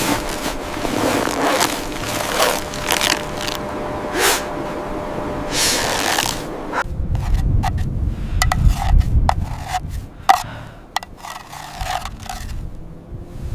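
Repeated rough scraping strokes. About seven seconds in they give way to a low rumble with scattered sharp knocks and clicks.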